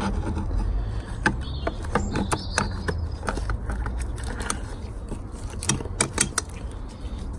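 Irregular light metallic clicks and clinks from a Toyota Auris gearbox's clutch fork and release bearing as they are fitted and worked back and forth by hand.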